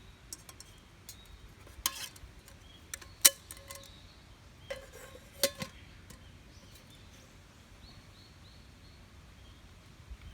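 Metal camp cookware and utensils clinking a few times, the sharpest knocks about two, three and five seconds in, some ringing briefly.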